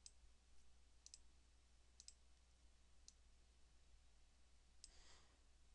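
Near silence with a faint low hum, broken by a few faint computer mouse clicks about once a second, some in quick pairs.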